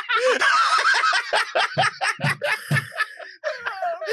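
Several people laughing together, high-pitched and in quick, overlapping pulses.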